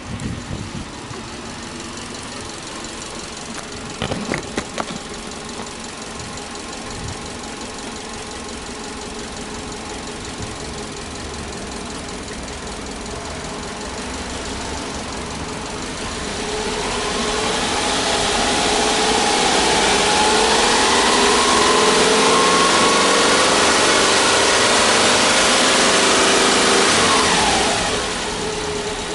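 Subaru Legacy's EJ25 2.5-litre flat-four idling steadily, with a couple of sharp thuds about four seconds in as the door is shut. About halfway through, a louder steady rushing noise with high squealing tones rises over the idle for some ten seconds and falls away near the end.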